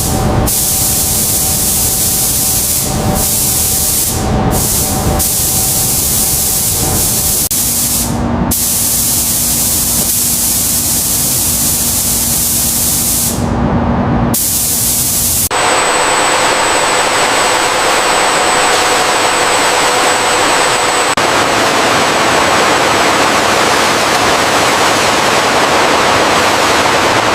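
Loud, steady hissing factory noise from a car body-shop line, with shifting machine sounds underneath. About halfway through it changes suddenly to an even, brighter hiss with a faint high whine.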